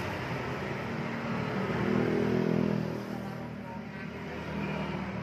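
A road vehicle's engine going by, growing louder to a peak about two to three seconds in and then fading, over a steady hum of traffic.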